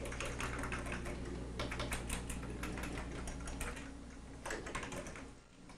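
Fingers typing quickly on a computer keyboard, a rapid run of key clicks over a low hum. The hum drops out after about three and a half seconds, and the clicks grow sparser and fainter near the end.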